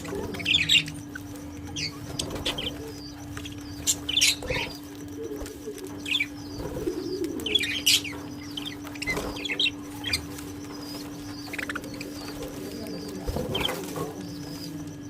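Pet parrots chirping in short, high calls scattered throughout, with wings flapping, over a steady low hum.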